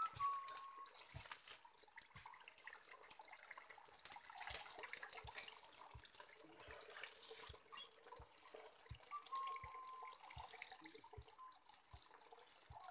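Water trickling and splashing as sago pith is washed in a palm-frond trough and drains into a tarp-lined pool, fairly faint, with soft regular thuds about one and a half times a second.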